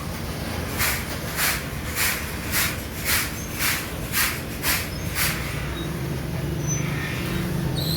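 Regular rasping strokes of hand work on a metal kettle part, about nine of them at nearly two a second, stopping about five seconds in; a low machine hum then comes up.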